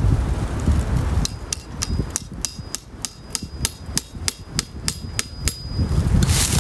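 Hammer driving a sap spout into a maple trunk: a run of about fifteen quick, light strikes, three or four a second, starting about a second in, each with a brief ringing note. Wind buffets the microphone before the strikes and again near the end.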